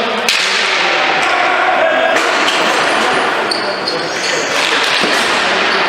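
Ball hockey play: sticks and the ball knocking sharply on the floor, several times, over indistinct shouting voices.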